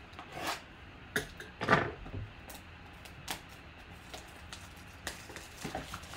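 Plastic shrink wrap on a cardboard trading-card box being punctured and peeled off, in short scattered crinkles and scratches, the loudest a little under two seconds in.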